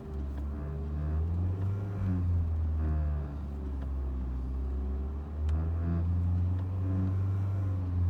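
Audi A4 B6's 1.8-litre turbocharged four-cylinder engine revved in park and held at about 2500 rpm, with a steady low drone that swells and sags slightly. This is the engine speed at which the owner hears a rattle they cannot trace.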